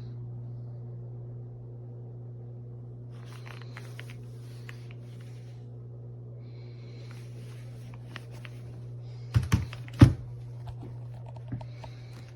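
Typing on an AULA S98 Pro mechanical keyboard with pre-lubed linear switches: short runs of keystrokes, with two louder key strikes about three-quarters of the way through, over a steady low hum.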